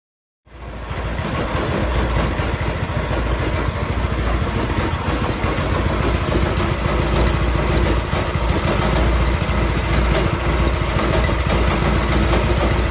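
Small air-cooled single-cylinder four-stroke petrol engine on a cyclekart running steadily, cutting in suddenly about half a second in.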